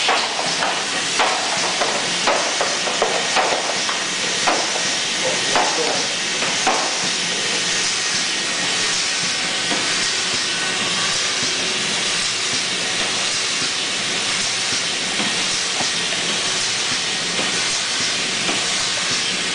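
Semi-automatic tray sleeving machine running with a steady hiss. A string of sharp clicks and knocks comes in the first seven seconds or so, then only the hiss.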